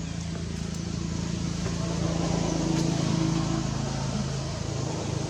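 A motor vehicle's engine running, a steady low hum that swells about two to three seconds in and then eases off, like a vehicle passing.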